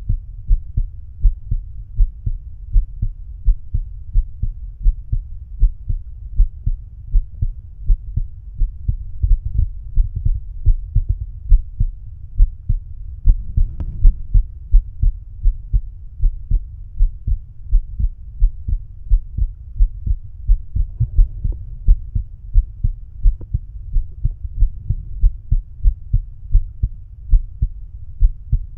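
A man's heartbeat heard through a stethoscope bell: steady, regular lub-dub beats, low in pitch. A brief rustle about halfway through.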